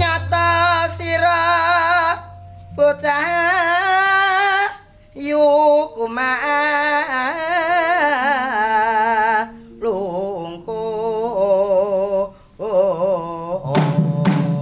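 A man singing in Javanese sinden style: long held notes with heavy, wavering vibrato, sung in about five phrases with short breaks between them.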